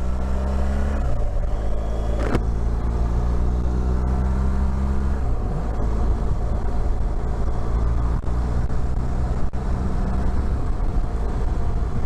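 BMW R1200 GSA's flat-twin engine pulling as the bike accelerates, its pitch dropping with an upshift about a second in and again about five seconds in, over a steady rush of wind.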